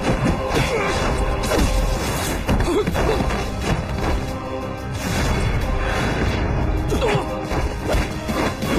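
Dramatic fight-scene music with repeated punch and body-blow sound effects, sudden hits landing every second or so over the score.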